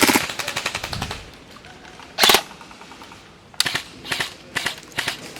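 Airsoft rifles firing short full-auto bursts of rapid clicks, several bursts in a row. The loudest burst comes about two seconds in.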